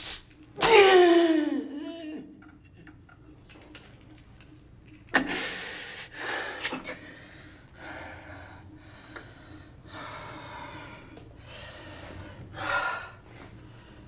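A man straining with all his effort to lift a heavy fixture: a loud groan falling in pitch about a second in, then heavy, gasping breaths about once a second.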